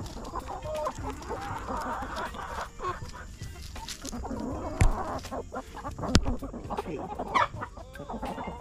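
A flock of backyard hens clucking and squawking close to the microphone, many short calls overlapping, with a couple of sharp knocks about two thirds of the way through.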